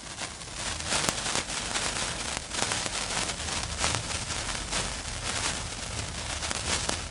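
Fireworks crackling densely, many small pops and sparkles overlapping, with louder cracks about a second in and again around halfway.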